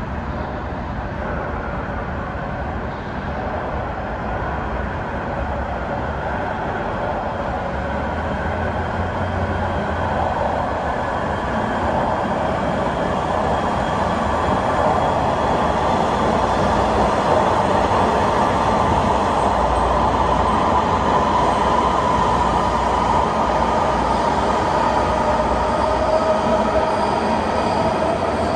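MARTA rapid-transit train approaching and pulling in along the station platform. It grows steadily louder, with a wavering high whine over a low rumble.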